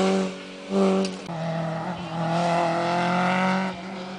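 Rally car engine pulling away hard down the stage: a short burst of revs about a second in, a gear change, then a long steady rise in pitch under full throttle that drops away near the end.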